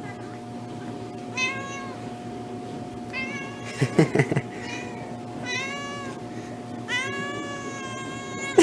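Domestic cat meowing repeatedly, about five meows, the last one long and drawn out. A few sharp knocks come about four seconds in, over a steady faint hum.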